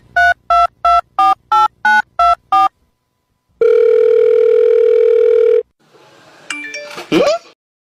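Telephone sound effect: a run of quick touch-tone keypad beeps, about three a second, then one steady beep lasting about two seconds. A short jumble of tones with a rising sweep follows near the end.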